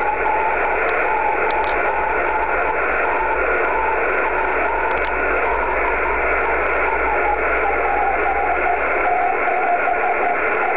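A 10 GHz Morse code (CW) signal received by rain scatter, heard from a transceiver's speaker: a rough tone keyed on and off under a steady receiver hiss. The tone is heavily distorted by scattering off raindrops.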